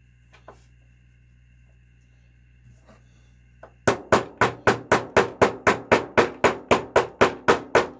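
Light clicks over a faint hum, then about four seconds in a fast, even run of sharp hammer taps, about four a second, driving a stuck bearing down the crankshaft of a small nitro model engine.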